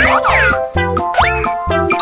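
Bouncy children's background music with a steady bass beat. A cartoon-style sweeping effect sounds near the start, and a quick rising whistle-like glide comes just past the middle.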